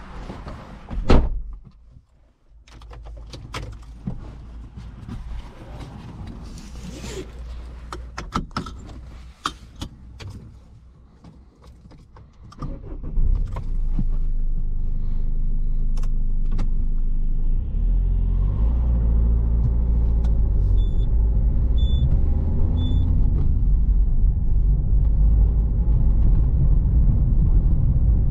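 Scattered clicks and knocks, with one loud knock about a second in, then at about 13 seconds the Citroen C3 Picasso's 1.6 HDi four-cylinder turbodiesel starts and settles into a steady running note that grows louder a few seconds later. Three short electronic warning beeps sound near the end.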